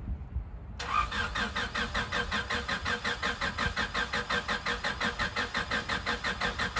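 Honda Del Sol's starter cranking the engine, which turns over in an even rapid rhythm but never catches. It is the no-start that the owner puts down to a failed fuel pump, after ruling out the main relay, fuses and ECU.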